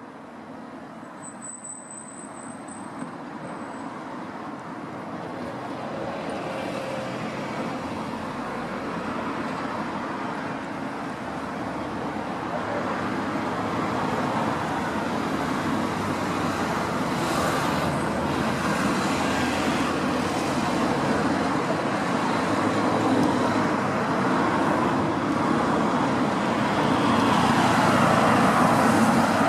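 Road traffic noise, an even rushing hum that grows steadily louder. A brief thin high tone sounds over it about a second in.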